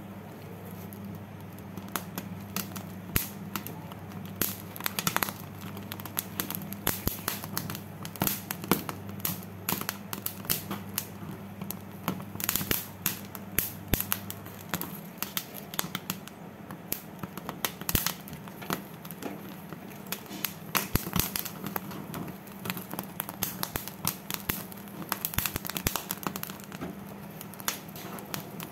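Corn cob roasting over a gas burner's flame, the kernels crackling and snapping irregularly as they char, several sharp crackles a second. A low steady hum runs underneath, its deepest part stopping about halfway through.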